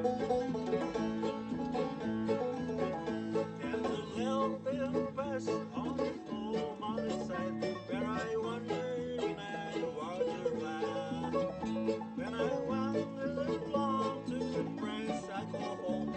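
Acoustic bluegrass band playing an instrumental passage in a steady rhythm, with plucked banjo and guitar prominent.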